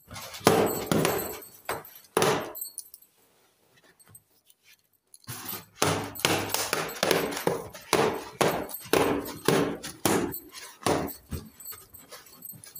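Inflated latex balloon squeaking as hands rub and squeeze its skin, in a run of short, uneven squeals. There is a pause of a few seconds before the squeaking starts again.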